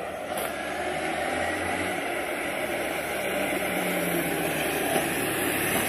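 Motorcycle engine idling steadily, heard from a video played through laptop speakers.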